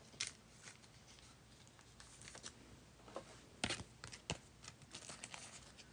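Faint rustling and light clicking of trading cards being handled. A few sharper ticks come through, the loudest about two thirds of the way in.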